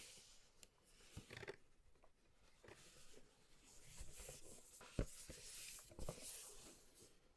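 Retail box and packaging of a gaming mouse being handled and opened: soft scraping and rustling, with a couple of light knocks about five and six seconds in.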